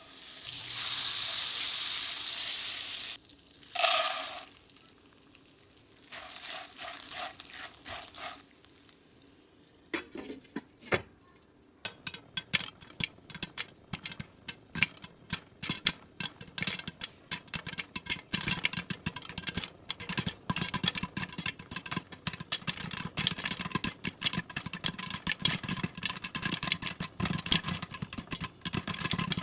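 Food preparation in a kitchen: a loud hiss for about the first three seconds, a short loud burst just after, then from about twelve seconds on quick continual clicking strokes of a utensil stirring in a bowl or pan.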